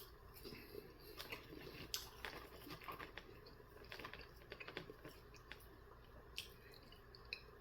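Faint, close-up chewing of chicken nuggets, with scattered small wet mouth clicks that thin out over the last couple of seconds.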